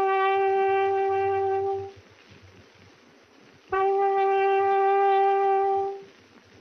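Small metal horn blown in two long blasts on one steady note, each about two seconds, with a pause of about two seconds between them.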